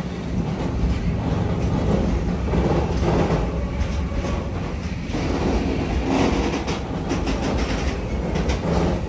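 Container freight train's wagons rolling past: a steady low rumble of wheels on rail, with a run of sharp clicks and clacks from the wheels over the rail joints from about five seconds in.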